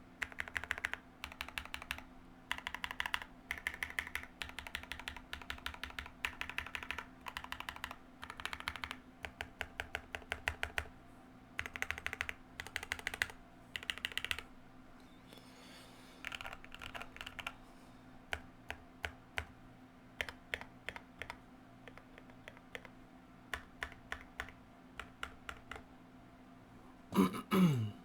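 Typing on a Keychron Q1 custom mechanical keyboard with lubed NK x Kailh Cream switches, MT3 keycaps, case foam and a tape mod: fast runs of keystrokes through the first half, then slower, separate keypresses. Near the end there is one brief, louder sound with a falling pitch.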